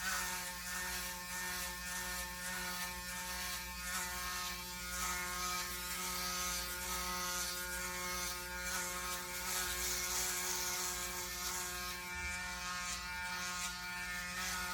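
Braun Series 9 Pro 9465cc electric foil shaver running steadily through head stubble: an even motor hum with an uneven crackle of hair being cut. Its motor, battery and circuit board are freshly replaced.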